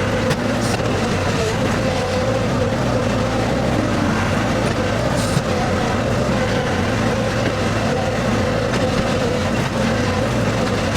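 Skid steer engine running steadily under work, a constant low drone that neither rises nor falls.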